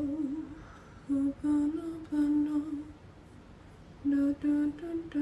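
A woman humming a wordless tune to herself, a few short held notes, a pause of about a second, then a few more notes near the end.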